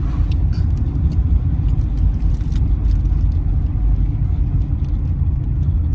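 A car driving along a road: a steady low rumble of engine and road noise with no change in speed, and a few faint light clicks.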